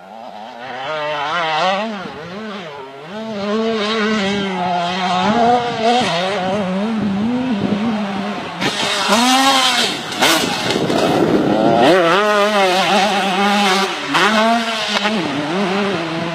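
Single-cylinder two-stroke engine of a KTM 150 motocross bike being ridden hard, its pitch repeatedly climbing and dropping with the throttle and gear changes. A louder rush of noise comes about nine to ten seconds in.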